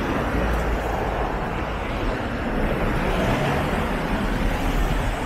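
Steady city street noise, mostly traffic running by, with no single event standing out.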